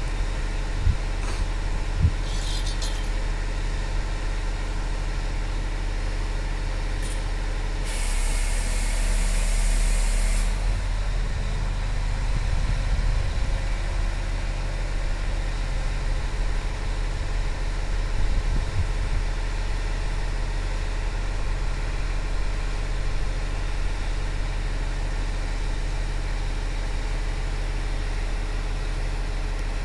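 Heavy engine idling steadily at the waterside, with a burst of hissing about eight seconds in that lasts a couple of seconds.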